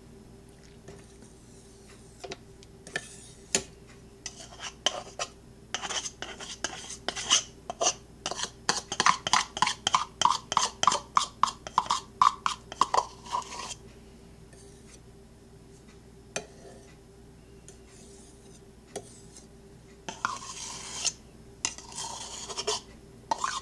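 A utensil scraping and tapping against a stainless steel stand-mixer bowl and its beater to knock sticky peanut butter loose. A run of quick, ringing metallic taps comes in the middle, about three a second, with a quieter stretch after it and more scraping near the end.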